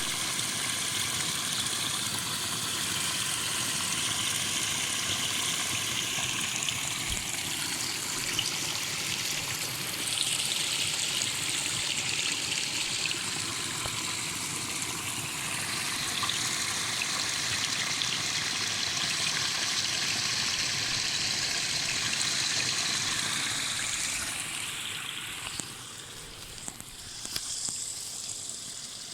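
Cold spring water flowing and splashing steadily from a natural spring, growing quieter near the end.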